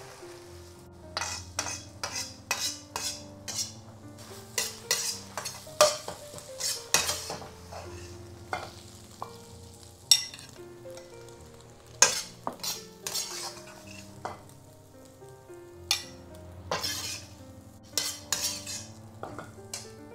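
Egg and spring onion stalks sizzling in oil in a wok, with a metal utensil scraping and knocking against the wok in short irregular strokes as the egg is stirred and scooped out.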